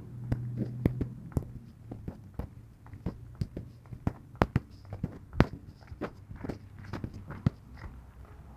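Footsteps walking at a steady pace, about two steps a second, over a low steady hum.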